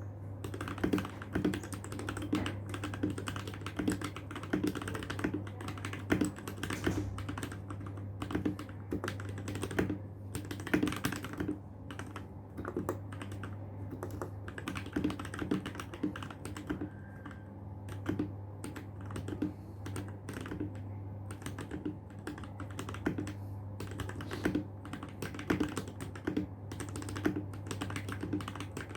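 Royal Kludge RK61 mechanical keyboard being typed on at a slow, uneven pace, its lubed switches giving a steady stream of irregular keystroke clicks.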